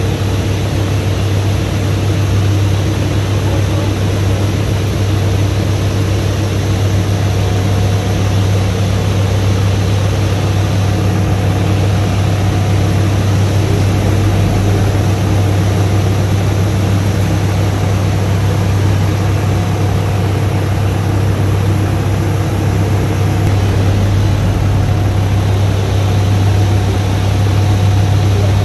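Scania P94 truck's diesel engine running at a steady, constant speed, powering the hydraulics of its Fassi F380 loader crane as the boom is raised.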